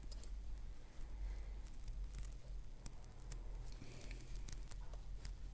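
Faint, scattered clicks and light scrapes of a lock pick raking and setting pins inside a six-pin Corbin padlock, over a steady low hum.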